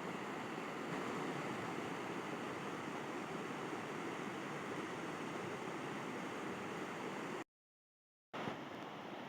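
River water flowing steadily with an even rushing noise. About seven and a half seconds in, it cuts to dead silence for about a second, then resumes a little quieter.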